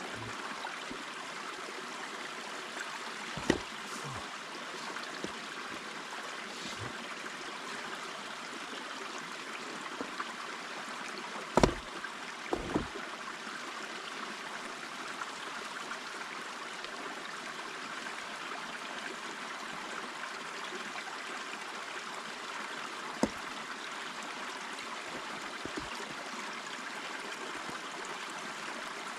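Creek water running steadily, with a few short sharp knocks over it. The loudest knock comes a little over a third of the way in.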